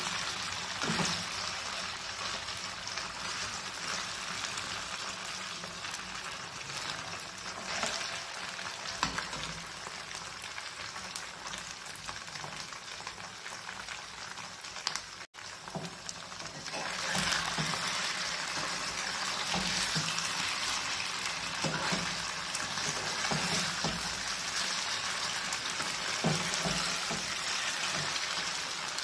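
Marinated paneer cubes sizzling steadily as they shallow-fry in hot vegetable oil in a non-stick pan, with a few short scrapes and knocks of a metal spatula turning them. After a brief drop-out about halfway, the sizzle is louder.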